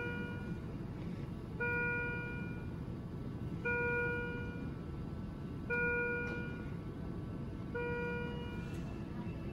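Neonatal intensive care equipment alarm beeping: a steady electronic tone just under a second long, repeating about every two seconds, over the low steady hum of the hospital machines.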